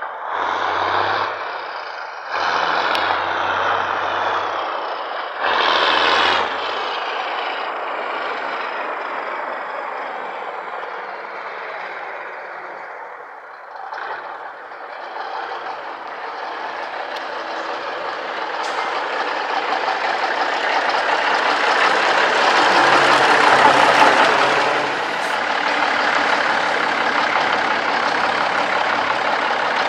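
A 1979 International Transtar cabover semi tractor's Cummins 290 diesel engine running as the truck drives up. It comes in a few short surges at first, then runs steadily and grows louder as the truck approaches, loudest a little past twenty seconds in.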